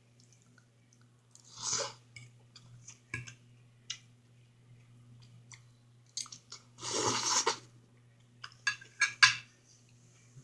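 Close-up mouth sounds of a person chewing a meal of eggs and tomato, with scattered wet clicks and two louder bursts, about two seconds in and seven seconds in, over a steady low hum.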